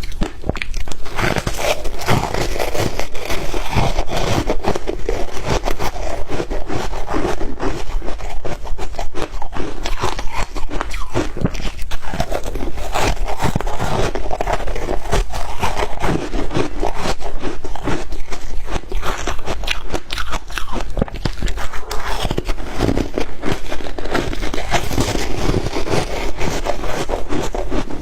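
Shaved ice being bitten and chewed: a continuous, dense crunching made of many small cracks.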